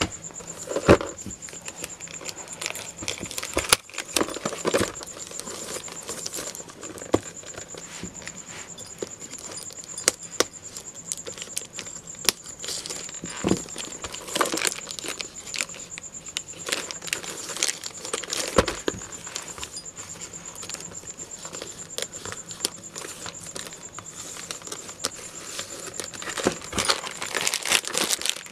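Plastic courier mailer crinkling and rustling as hands pull and tear it open, with scattered sharp crackles and snaps of the plastic.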